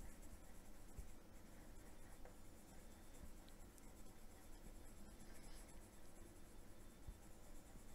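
Faint scratching of a silver Derwent metallic watercolor pencil colouring a swatch on black paper.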